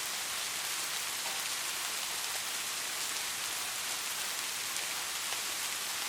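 Steady rain falling, an even hiss with fine drop ticks throughout.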